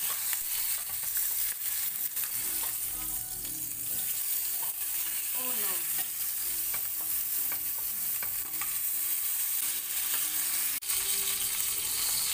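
Whole chicken searing in hot canola oil in a nonstick pan: a steady sizzle and spit of frying fat, with occasional clicks and scrapes as a metal spatula and spoon turn the bird over to brown the other side.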